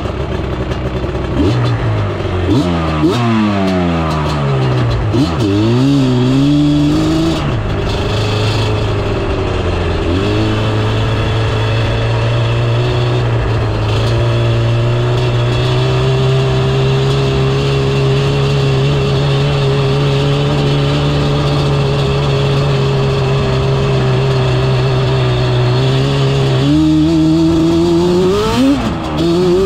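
Yamaha Banshee quad's two-stroke twin engine under way, revving up and down quickly for the first several seconds, then held at a steady pitch for about fifteen seconds, and revving up again near the end.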